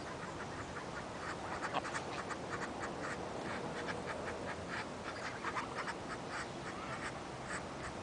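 Domestic geese swimming close by, giving many short, rapid calls, thicker from about a second and a half in.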